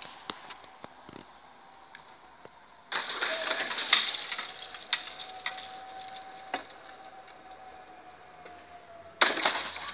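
Level-crossing equipment giving a steady whine while the barriers move. Two short bursts of noise come about three seconds in and again about nine seconds in.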